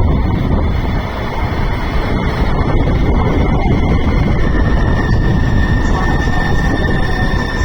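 Harsh noise: a loud, dense wall of distorted rumbling noise, heaviest in the low end, with a steady high whining tone coming through from about five seconds in.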